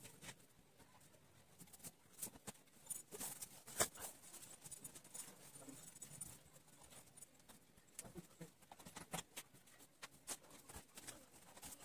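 Fine-tipped 0.2 technical pen scratching and tapping on paper as it draws small circles and spirals: faint, irregular ticks and scratches, with a busier patch about three seconds in.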